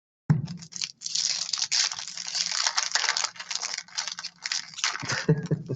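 Foil trading-card pack wrappers crinkling and tearing as packs are ripped open, a dense run of crackles after a short silent gap at the start.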